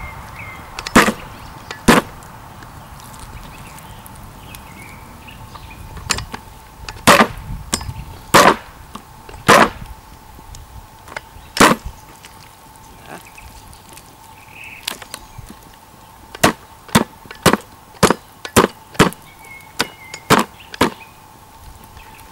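Hatchet blows on a whole chicken lying on a wooden chopping board: sharp knocks that break the bird's joints to flatten it for chicken tabaka. They come irregularly at first, then in a quicker run of about eight near the end.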